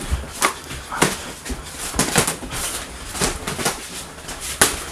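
Sparring: a string of irregular sharp thuds, about one or two a second, from gloved punches and kicks landing.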